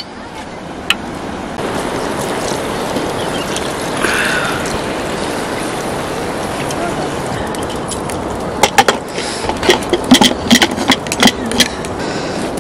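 Water poured from a metal kettle into a pressure cooker of frying buffalo meat over a wood fire, a steady rushing pour. About two thirds through it gives way to a quick run of sharp metal clanks and knocks.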